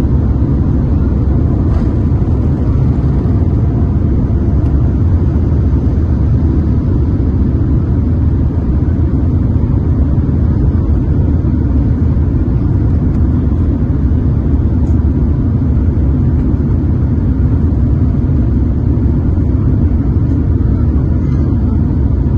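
Boeing 787-9 airliner on takeoff: a loud, steady low rumble that holds even throughout.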